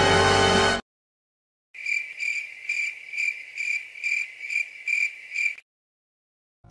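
Cricket chirping: a run of regular high chirps, a little over two a second, lasting about four seconds, after a stretch of music cuts off about a second in.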